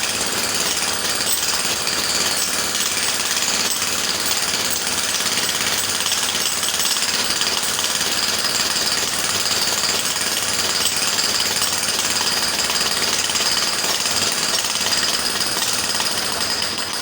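Electric jackhammer running continuously, a steady rapid stream of hammer blows with no let-up.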